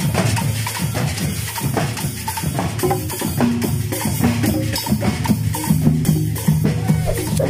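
Marching band drum line playing a fast, steady rhythm on snare drums, marching bass drums and congas, with cymbal strikes mixed in.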